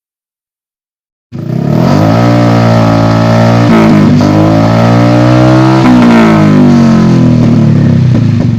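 Honda Vario 150 scooter's single-cylinder engine revving through an aftermarket WRX exhaust. It cuts in suddenly about a second in, then rises and falls in pitch several times.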